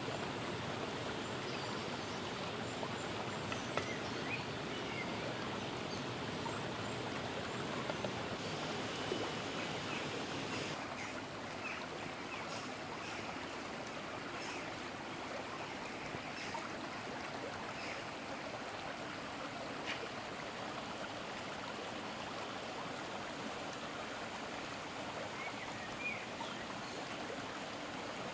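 A rocky forest river running steadily over stones, with a small waterfall's continuous rush. The rushing drops slightly about eleven seconds in, and a few faint short chirps are heard over it.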